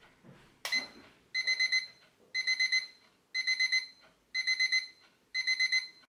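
Alarm clock beeping: short bursts of rapid electronic beeps, repeating about once a second, five bursts in all. A single click comes just before the first burst.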